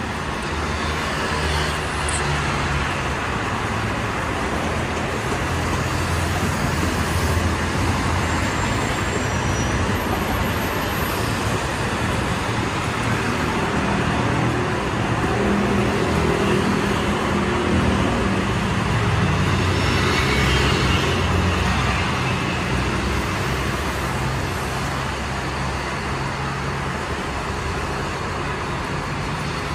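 Steady traffic on a wide multi-lane road: cars, pickups and motorcycles driving past, with engine sounds growing louder around the middle as vehicles pass close by.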